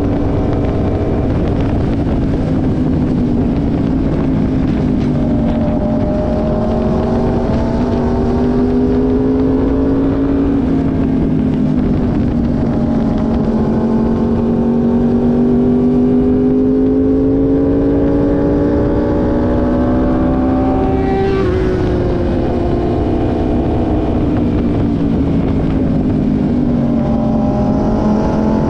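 Motors running at high speed in a steady whine whose pitch rises and falls smoothly over several seconds. About three-quarters of the way through, something sweeps past with a quick fall in pitch.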